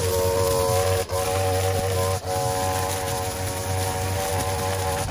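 Gas-powered string trimmer running at high speed, its engine whine steady as the line cuts through thick, tall grass, dipping briefly twice about one and two seconds in.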